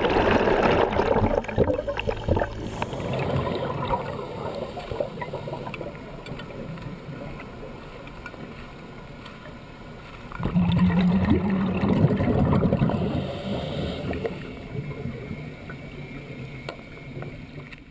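Underwater sound of scuba divers breathing: exhaled bubbles rushing and gurgling in two louder surges, one at the start and one about ten seconds in, with quieter watery hiss between. A few sharp knocks in the first couple of seconds.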